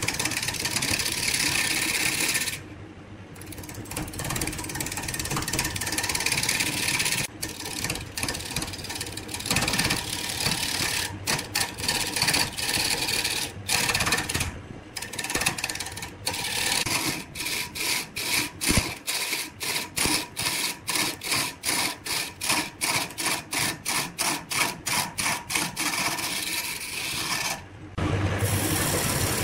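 A wood lathe spins a large cylindrical blank while a hand-held turning chisel cuts along its surface, making a dense scraping, shaving noise as the dark outer layer is taken down to clean wood. Over the second half the cut breaks off and resumes in quick, even succession, about two or three times a second.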